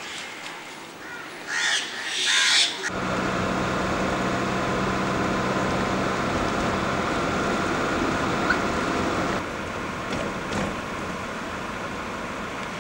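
A crow caws loudly twice over quiet street ambience. Then comes a steady engine hum and road noise from inside a moving car, which drops in level about two-thirds of the way through.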